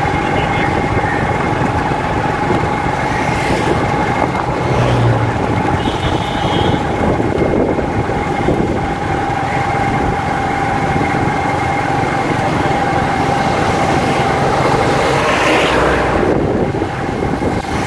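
Motorcycle running at a steady, slow riding speed, heard through a helmet-mounted camera with road noise and a steady whining tone running through it.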